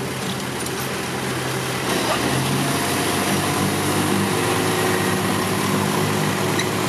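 Six-wheel dump truck's diesel engine running, revving up and getting louder about two seconds in as the hydraulic hoist begins raising the loaded bed, then holding steady under load.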